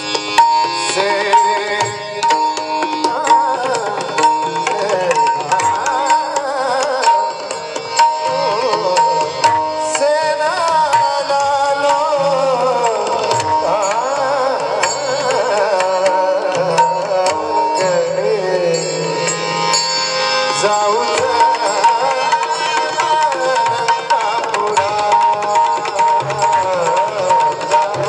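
Marathi devotional bhajan music: a wavering melodic line, sung, over a steady held tone and quick hand-drum strokes.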